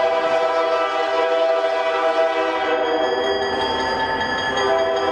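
Diesel freight locomotive's air horn blowing a long chord of several tones as the train approaches, sounding for a grade crossing.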